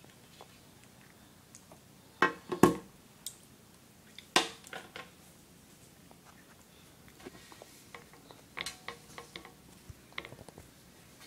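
Fork clinking and tapping against a plate while cake is eaten: a few sharp clicks, the loudest about two to three seconds in and again around four seconds, then lighter scattered taps later.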